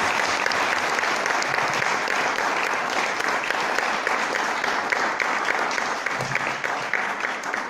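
Audience applauding, many hands clapping in a dense, steady patter that begins to fade near the end.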